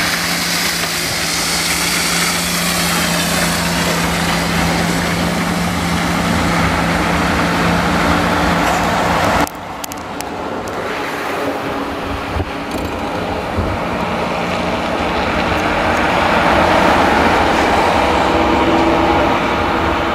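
Heavy lorry diesel engines running, a steady drone with a held low hum. About halfway the sound changes abruptly to a different engine noise, which builds up and is loudest near the end.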